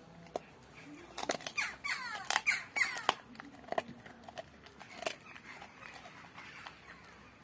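Rottweiler chewing a raw pork bone: a burst of teeth crunching and clicking on the bone about a second in, with short falling squeaks among the crunches, then a few scattered crunches.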